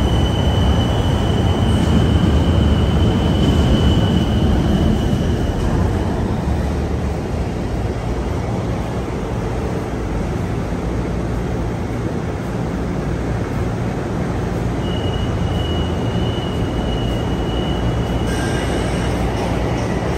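LRT-1 light rail train standing at the platform, its onboard equipment running with a steady low hum. A thin, steady high whine sounds over it for the first six seconds and again over the last five.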